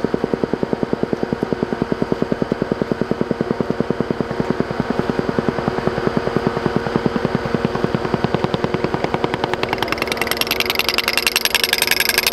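Pneumatic moling tool hammering through the ground with a rapid, even beat, over a steady engine hum. From about ten seconds in the hammering turns louder and sharper as the mole breaks out into the exit pit.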